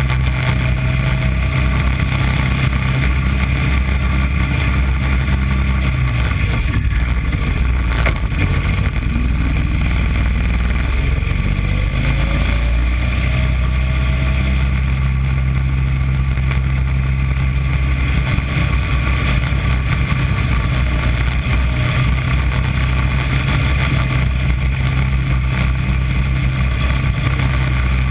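Small engine of a miniature Corvette race car running steadily at speed, heard from onboard, with a steady drone whose pitch shifts for a few seconds partway through.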